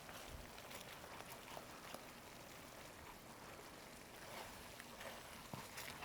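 Faint simmering of risotto in a hot pan, a low steady bubbling hiss with a couple of light utensil clicks.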